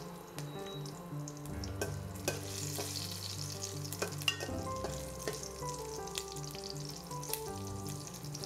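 Whole mustard seeds and green chillies sizzling in hot mustard oil in a steel karai as they are tempered, stirred with a spatula, with scattered sharp clicks. The sizzle grows louder about two and a half seconds in.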